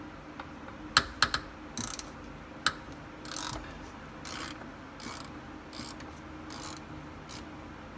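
Hand socket ratchet backing out a 12 mm door-hinge bolt: a few sharp metallic clicks and knocks about a second in, then a run of short ratcheting strokes about once a second.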